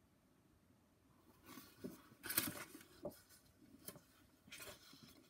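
A picture book being handled and put down: a few short paper rustles and light taps, the loudest about two and a half seconds in, after a second and a half of near silence.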